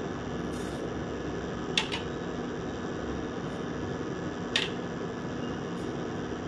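Small glass bowls clicking against a nonstick pan as whole spices are tipped into it: a quick pair of sharp clicks just under two seconds in and another near five seconds, over a steady background hum.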